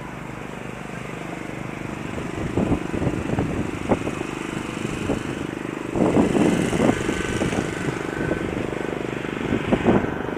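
Rally car engine idling, a steady hum, with louder uneven spells a few times.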